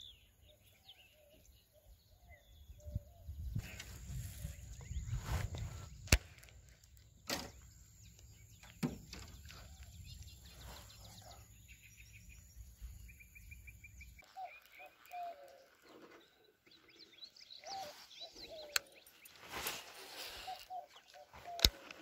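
Birds chirping and calling, with short trills. A low rumble of wind on the microphone runs until about two-thirds of the way through, and a few sharp clicks stand out, the loudest near the end.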